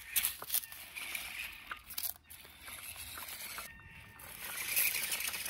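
A small RC rock crawler crawling up bare granite, with scattered clicks and scuffs of its tyres and the rock underfoot, over an even outdoor hiss.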